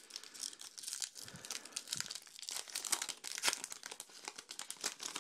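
Foil wrapper of a 2012 Topps Archives baseball card pack being torn open and crinkled by hand, a dense irregular crackling.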